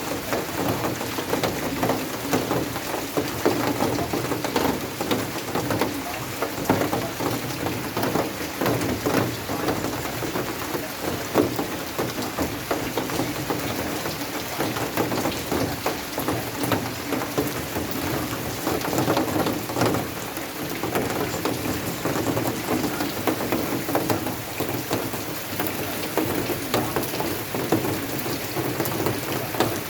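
Steady rain falling, a continuous hiss made of countless small drop impacts, holding at an even level.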